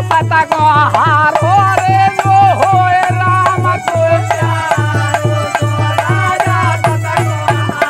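Rural Hindi folk bhajan: men's voices singing a wavering, gliding melody over a dholak that beats a steady bass stroke about twice a second, with small hand cymbals keeping time.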